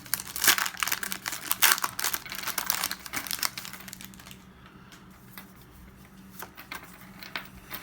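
Foil Pokémon booster pack wrapper crinkling as it is handled and torn open, with dense crackling for about four seconds, then a few soft clicks from the cards.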